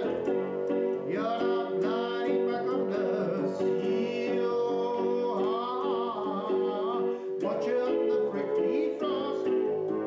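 A song: a singing voice over held electronic keyboard chords.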